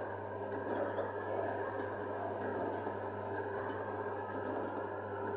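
Coin-operated Thomas the Tank Engine kiddie ride running with a steady low hum, with faint light clicks every second or so over an even background hubbub.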